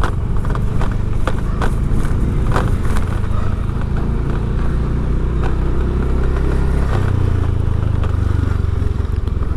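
A vehicle's engine running steadily while riding along a road, with scattered knocks and rattles; the low drone shifts about seven seconds in.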